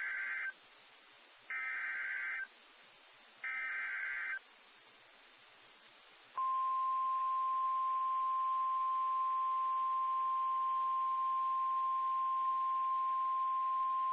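NOAA Weather Radio emergency alert signals: three short screeching SAME data bursts (the digital header that encodes the severe thunderstorm warning), then a pause, then the long steady 1050 Hz warning alarm tone starting about six seconds in, the loudest part.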